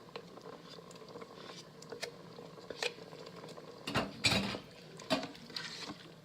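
A spoon scraping and knocking against a sour cream container and the pressure cooker's inner pot as sour cream is spooned in, a few separate clicks with a louder cluster of knocks about four seconds in.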